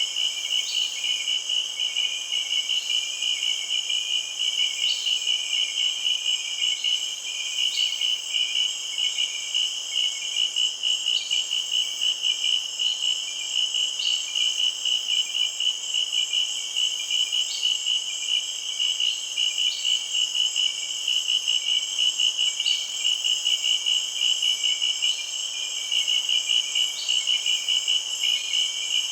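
Insects chirping in a steady night-time-style chorus: a fast, even pulsing chirp with a higher continuous buzz behind it.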